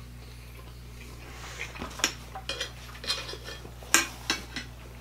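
Knife and fork clinking and scraping on dinner plates as steak is cut and eaten: a scatter of light clicks, with sharper ones about two and four seconds in, over a steady low hum.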